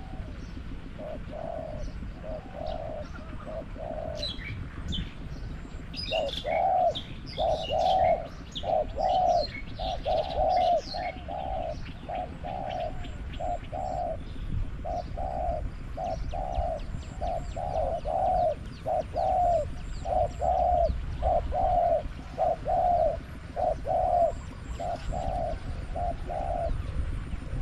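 Spotted doves cooing: a long run of short, low coos, one or two a second, broken by brief pauses. They come from a caged decoy dove and wild doves that have come to it. From about 4 to 12 seconds in, small birds chirp high above the coos.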